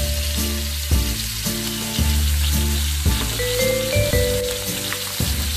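Chicken pieces sizzling in their juices in a frying pan, a steady crackle. Background music of held notes, changing pitch about once a second, plays over it.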